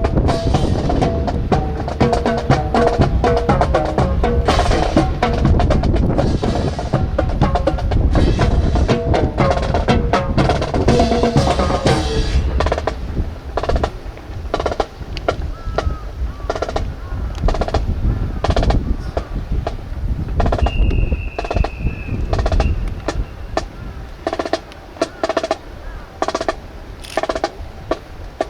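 Snare drums playing a drill cadence, with dense rolls and rudiments at first. From about halfway through they settle into a sparser, steady beat of single strokes, about two a second.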